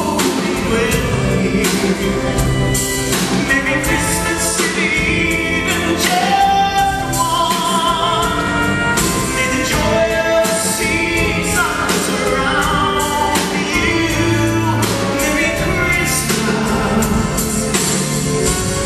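A male singer performing a Christmas song live in concert, with band accompaniment.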